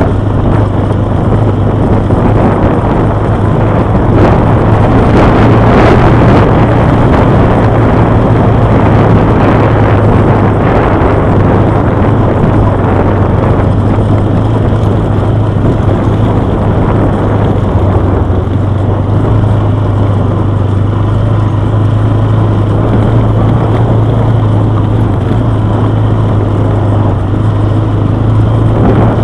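Quad bike engine running at a steady pitch while riding along a gravel track, over a constant rushing noise from wind and tyres.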